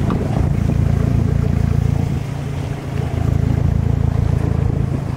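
Jon boat's motor running steadily at low speed, a constant low engine hum.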